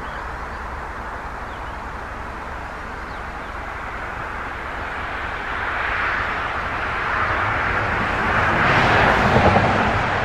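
A passing vehicle: a steady rush of noise with a low rumble underneath that slowly swells, is loudest about nine seconds in, then begins to fade.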